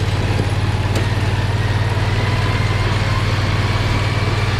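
Predator 670 V-twin engine running steadily under light load with an even low throb, no revving, as the cart moves super slow.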